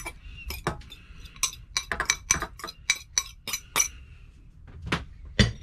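Metal fork clinking against a ceramic bowl and a stainless steel pan as grated cheese is scraped off it: a quick run of sharp clinks, about four or five a second, then two more near the end.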